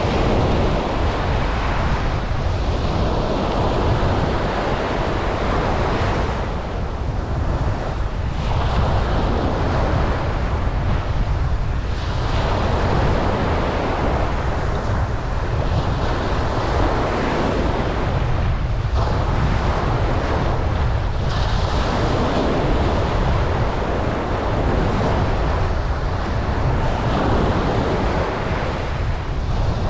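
Ocean waves breaking and washing up a beach, surging and easing every few seconds, over a steady low rumble of wind on the microphone.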